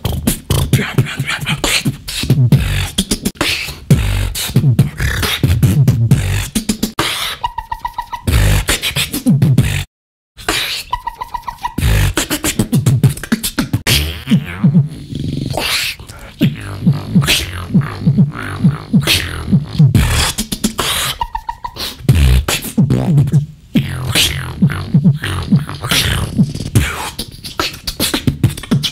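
Solo beatboxing: rapid mouth-made kick drums, snares and hi-hat clicks in a driving rhythm, with a few short held tones mixed in. It stops dead for about half a second around ten seconds in, then resumes.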